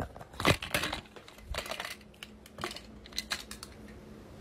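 Sheet of drawing paper rustling and being handled, an irregular run of crinkles and small taps, the strongest within the first second.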